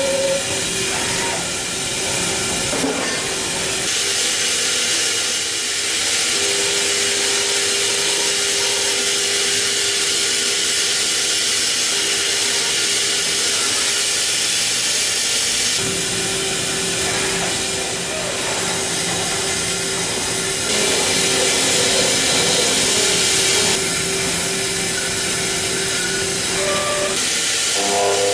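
Mazak Integrex i-100ST multitasking machine milling a spiral bevel gear with a 2.5 mm end mill in simultaneous 5-axis. A steady spindle whine runs over a constant hiss. The whine drops out briefly a few times, and the hiss steps louder and softer as the cut goes on.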